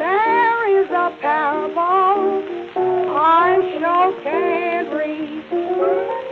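Old blues record playing: a lead melody sliding and wavering in pitch over sustained piano chords, with the dull, top-less sound of an early recording.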